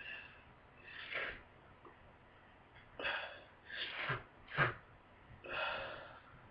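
A person with a congested head cold gasping and sneezing. There are several short, breathy bursts of air, and the loudest and sharpest burst comes a little past the middle.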